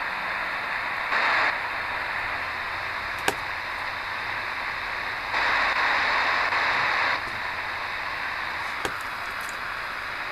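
DEGEN DE1103 shortwave receiver in SSB mode giving a steady static hiss. The hiss swells louder briefly about a second in and again for nearly two seconds around the middle, with a sharp click near a third of the way through and another near the end.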